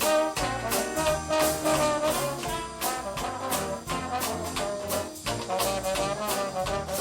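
Background music: an upbeat jazz tune led by brass horns over a steady beat.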